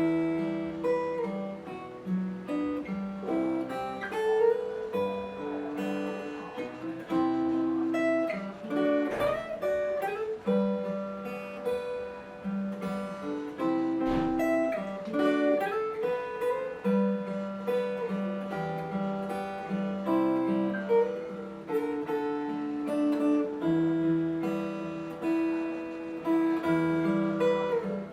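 Steel-string acoustic guitar, a copy of a Taylor 314ce, played solo fingerstyle: a plucked melody over a moving bass line, with notes ringing on.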